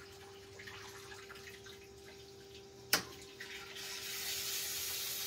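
A 3000 W pure sine wave inverter switching on: one sharp click about three seconds in, then its cooling fan starts with a steady hiss that grows louder a second later. A faint steady hum sits underneath.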